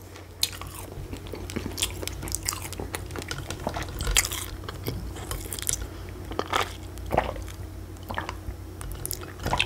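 A person chewing and biting food close to the microphone, with crisp crunches scattered throughout.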